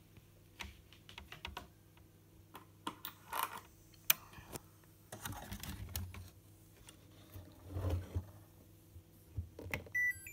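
Scattered clicks and rustles as the wiring and connectors of a washing machine's control board are handled. Near the end comes a short electronic beep: the repaired Samsung WF7350N7W control board powering up.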